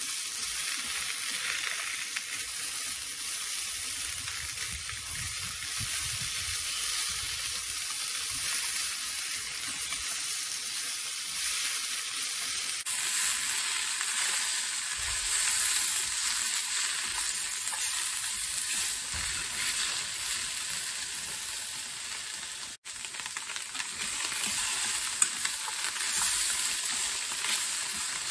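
Goya (bitter melon) and satsuma-age fish cake stir-frying in oil in a frying pan over medium to high heat: a steady sizzle, with chopsticks turning the pieces. The sound cuts out for an instant about two-thirds of the way through.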